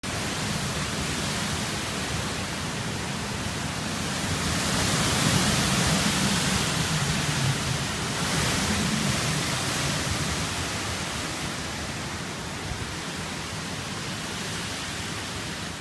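Hurricane wind and heavy rain: a steady rushing noise that swells in a stronger gust from about four and a half to nine seconds in.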